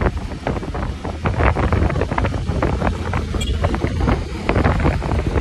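Wind buffeting the microphone of a phone carried on a moving motorcycle, a loud, uneven rumble with road and engine noise underneath.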